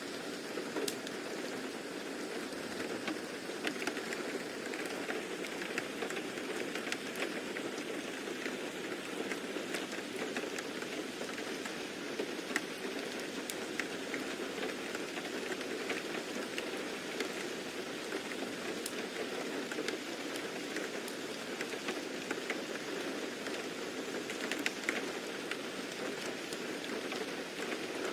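Steady rain falling, a continuous hiss with scattered drops pattering on a surface.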